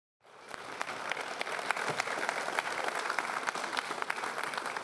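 Audience applause, a dense patter of many hands clapping that fades in just after the start and then holds steady.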